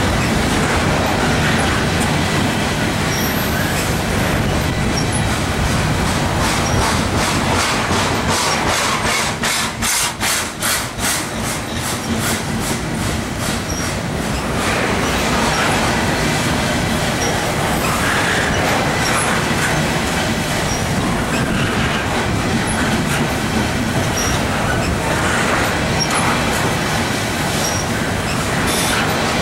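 Freight train's container cars rolling past close by: a steady rumble of steel wheels on rail, with a fast run of rhythmic clicking for a few seconds about a third of the way in and short high wheel squeaks here and there.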